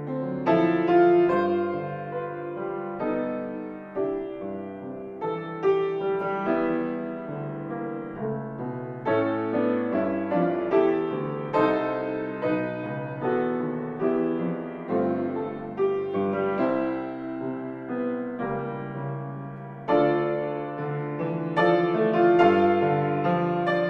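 Piano playing a piece of chords and melody notes, each struck and left to fade.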